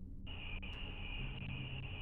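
Crickets chirring in one steady high-pitched band that cuts in abruptly about a quarter second in, over a faint low hum, as picked up by a doorbell camera's microphone at night.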